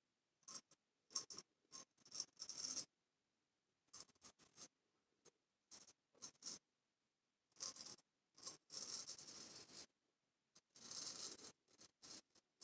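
Faint strokes of a large straight razor cutting stubble under shaving-soap lather on the upper lip and chin: short scraping strokes in irregular groups, with a few longer ones of about a second.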